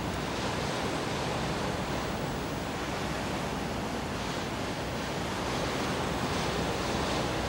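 Sea wash rushing along a moving ship's hull, mixed with wind. The steady rush swells a little a few times.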